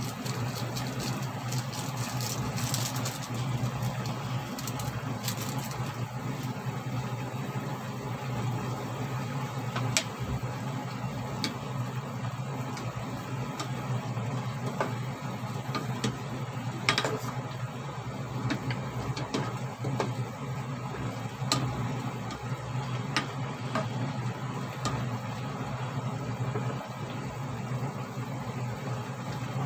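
A steady low hum and hiss at the stove, broken a few times by sharp clicks and taps of a hand at a stainless-steel pot of simmering pork.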